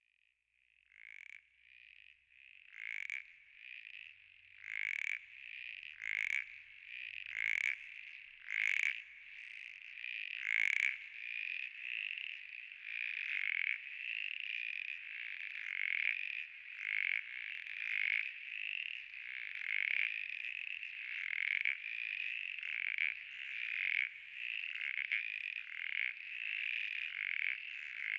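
A chorus of frogs calling with short, high-pitched, repeated calls. It fades in, with separate louder calls standing out at first, and thickens into a dense, unbroken chorus.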